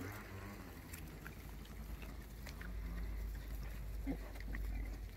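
Wild boars foraging in gravel: faint snuffling and a few low grunts, with scattered small clicks of stones.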